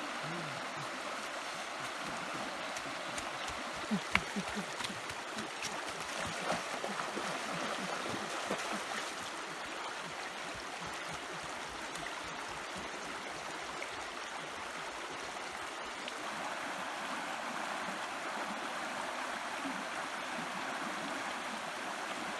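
Stream water running steadily, with a few splashes and gurgles between about three and nine seconds in.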